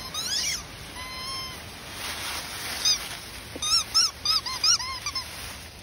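Cairn Terrier puppies yipping and whining while they play: a rising whine, then a held whine in the first second and a half, and a quick run of short, high yips over the last two or three seconds.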